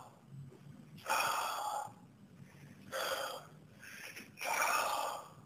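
A man's hard, breathy exhalations, three times, each under a second, while he strains to hold flexing poses.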